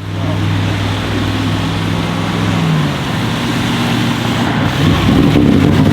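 Audi RS7 Sportback C8's twin-turbo 4.0-litre V8 running with a steady engine note. About three seconds in the note drops away, then rises and gets louder near the end as the engine is revved.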